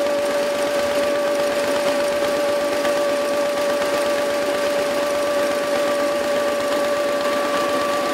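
Small vintage stationary petrol engine running steadily with a fast, even chatter, over a steady high whine.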